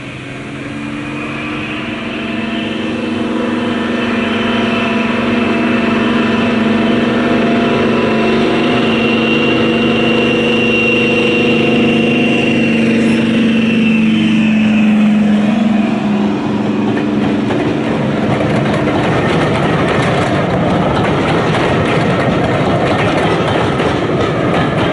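Diesel locomotive approaching and passing, its engine note growing louder and then dropping in pitch as it goes by about halfway through, followed by the rumble and clatter of the train's coaches rolling past on the rails.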